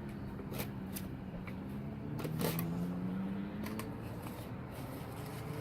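Cardboard box and paper packing being handled and opened, with irregular crackles and clicks, over a low steady hum.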